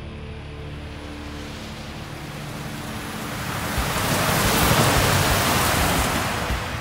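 Scania truck and tanker trailer driving past close by: a growing wash of tyre and engine noise on a wet road that peaks about four to five seconds in, then fades as it goes by.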